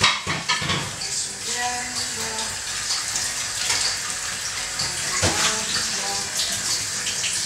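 Kitchen tap running into the sink, with a few short knocks near the start.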